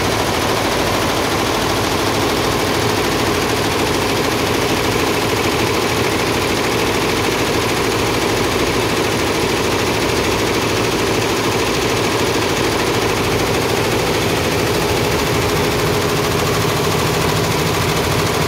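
Embroidery machine running: a fast, steady clatter of rapid needle strokes over a low motor hum, unbroken throughout.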